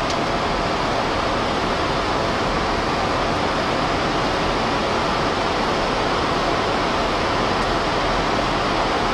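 Steady rushing noise of air streaming past a Boeing 737-400's flight deck in a fast descent at around 280 knots, even throughout.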